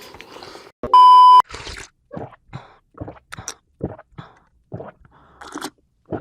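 Close-miked chewing of a big mouthful of food, a short wet crunch or smack about every half second. About a second in comes a loud half-second electronic beep.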